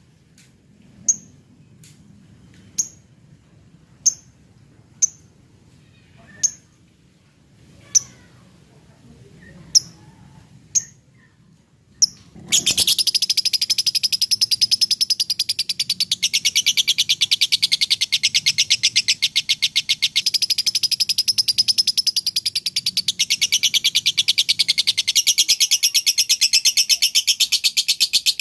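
Lovebird giving single sharp chirps about once a second, then about halfway through breaking into a continuous, very rapid, high-pitched chattering trill that runs on without a break: the long 'ngekek' trill that Indonesian keepers call 'konslet' and 'ngocok'.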